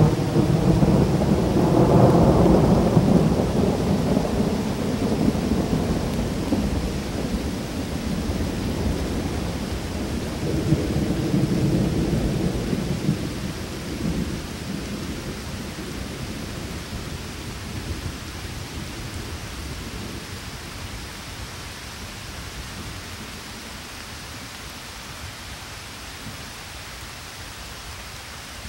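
A long roll of thunder over steady rain. It breaks in suddenly, is loudest in the first few seconds, swells again about ten seconds in, and fades away by about twenty seconds, leaving the even hiss of rain.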